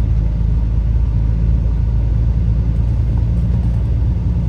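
Tour bus engine and road noise heard from inside the cabin: a steady, loud low rumble.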